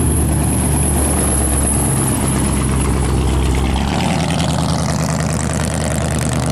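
Low, steady engine rumble of a chopped 1950s custom car cruising slowly by, its sound changing as it passes close about four seconds in.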